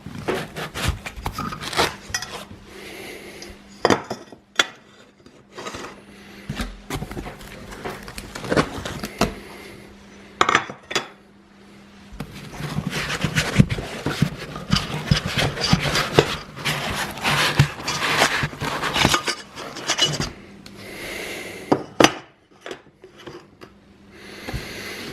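3D printer kit parts being unpacked and handled: clicks, clinks and knocks of hard parts, with handling noise. The activity grows busiest from about halfway in to about three-quarters through.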